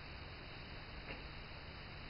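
Steady low hiss of room tone, with a single faint tick about a second in.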